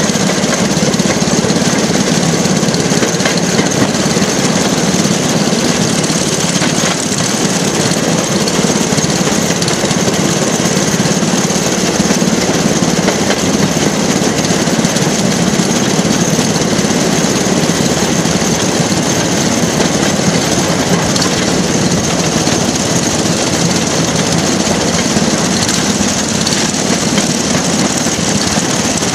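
Small engine of a rail track car (jigger) running steadily as the car travels along the rails.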